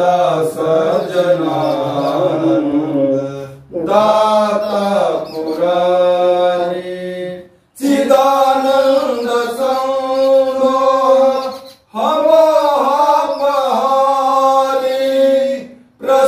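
A man's voice chanting Hindu mantras for a Rudrabhishek, in long melodic phrases held on steady notes. There is a short pause for breath about every four seconds.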